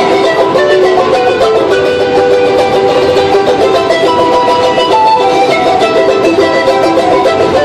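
Live busker music led by a plucked string instrument played fast, with a dense run of notes and no break.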